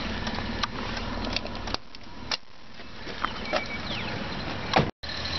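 Scattered clicks and knocks from a car's door and cabin being handled while reaching for the hood release lever. The loudest is a sharp click about two and a half seconds in. A steady low rumble runs underneath.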